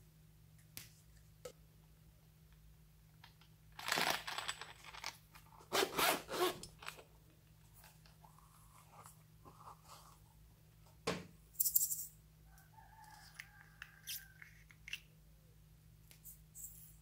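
Two raspy zipping strokes about two seconds apart, a zippered pencil case being pulled open, then a sharp click and a few faint scrapes and squeaks of plastic being handled.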